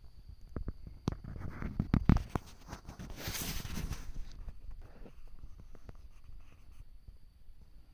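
A run of light knocks and scratchy taps, then about a second of rustling hiss a little past the middle.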